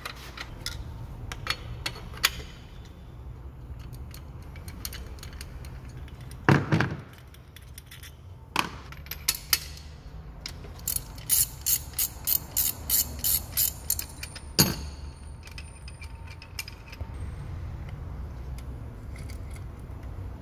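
Hand tools clicking and clattering on a Golf TSI engine while a spark plug is taken out, with a fast run of ratchet clicks partway through and two louder knocks. The plug's ceramic insulator has come loose, the cause of the engine noise.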